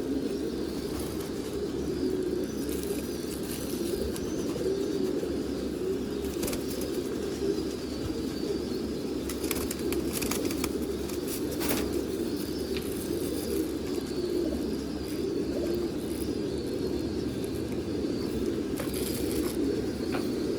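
Many domestic pigeons cooing at once, a continuous overlapping low murmur, with scattered short clicks and rustles.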